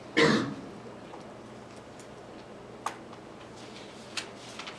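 Tracing paper being shifted over a drawing sheet on a desk: a short rustle of paper about a quarter second in, then two sharp ticks, the second fainter, near three and four seconds in.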